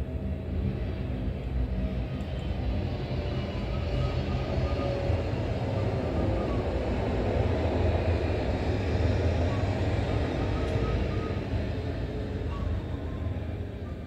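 Low rumble of a passing vehicle that swells to its loudest about eight seconds in, then fades.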